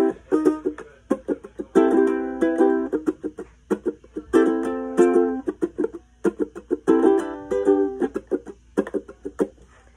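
Ukulele strummed in a rhythmic pattern, cycling through its chords: a ringing chord about every two and a half seconds, with short, sharp strumming strokes in between.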